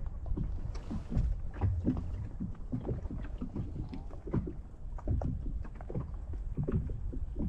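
Small waves slapping irregularly against the hull of a bass boat, over a steady low rumble.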